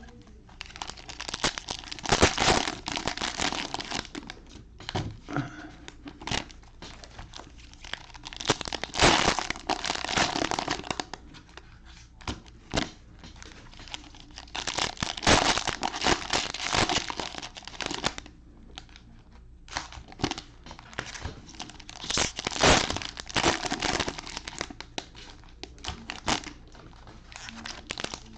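Cellophane wrappers of trading-card cello packs crinkling and tearing as the packs are ripped open and handled. The crinkling comes in bursts a few seconds long, with quieter handling between them.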